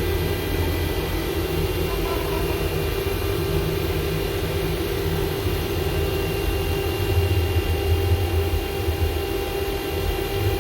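Haas VF-2SS CNC vertical machining center moving its spindle head down the Z axis: a steady machine hum with several faint steady whining tones over it, the low hum swelling and easing as the head travels.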